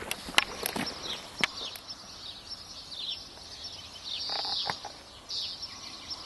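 Birds singing, a run of short, high, falling chirps with a louder burst about four seconds in. A few sharp taps come in the first second and a half.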